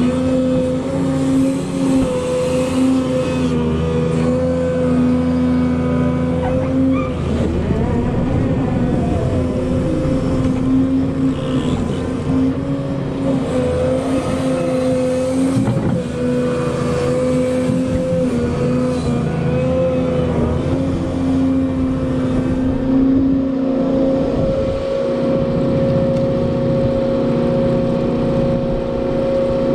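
Volvo EC220E excavator's diesel engine and hydraulics running steadily with a constant pump whine, the pitch sagging briefly now and then as the machine takes load.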